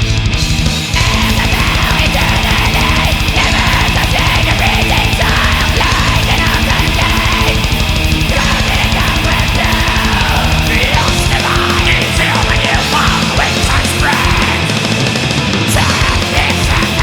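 Black/death metal recording: a dense wall of distorted band sound over fast, regular drumming. There is a brief break about a second in before the full band comes back, and the low-end pattern shifts about two-thirds of the way through.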